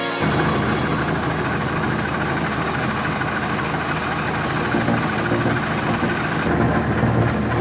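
A motor running steadily with a low hum and a broad noisy wash, its upper hiss switching abruptly twice.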